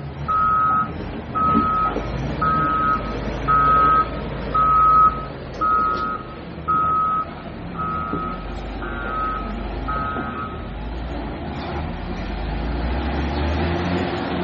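A heavy vehicle's backup alarm beeping steadily about once a second, stopping about eleven seconds in. Underneath runs the steady rumble of diesel machinery and the rush of a flooded river, which grows louder toward the end.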